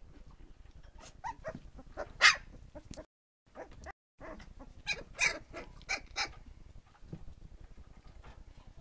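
A litter of three-week-old American Staffordshire terrier puppies giving short, high squeaks and yips, scattered and overlapping, the loudest about two seconds in. The sound cuts out completely for about a second near the middle.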